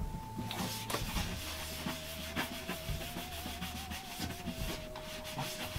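Hands pressing and rubbing an adhesive-backed wall magnet plate flat against a painted wall: a rough rubbing noise with scattered small knocks and ticks. Under it, a single wavering note of background music is held, dropping to a lower note about a second in.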